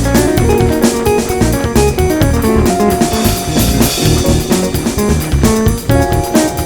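Background music with guitar, bass and a drum kit keeping a steady beat.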